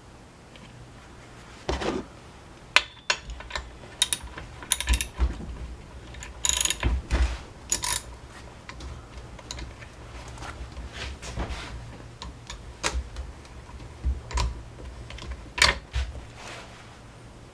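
Hand tools and small metal parts clicking and clattering in irregular knocks, with some ratchet-like clicking, during work on a non-starting Honda UMK-422 brush cutter.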